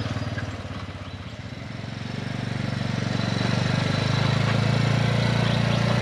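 Quad bike engine running as it drives closer: a steady, pulsing drone that dips briefly about a second in, then grows louder from about two seconds in.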